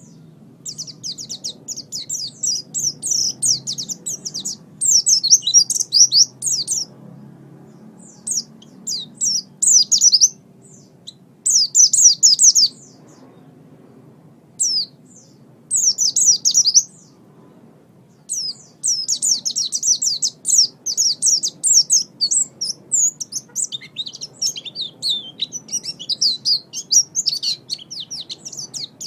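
White-eye (pleci) singing: rapid, high-pitched twittering phrases in bursts of a second or two with short pauses between them. The song runs almost without a break in the last third.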